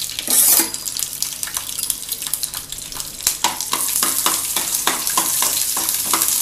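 Cashew nuts sizzling as they fry in ghee in a nonstick pan. From about three seconds in, a spatula stirs them, scraping the pan in quick repeated strokes.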